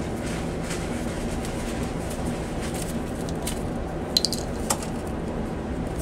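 Wire nuts being twisted off a refrigerator compressor's wiring by gloved hands: a few small clicks and a brief squeak about four to five seconds in, over a steady low background hum.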